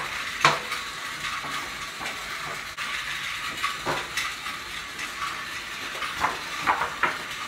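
A sheet of paper rustling and crackling as it is waved and shaken, with several sharp snaps of the paper over a steady hiss.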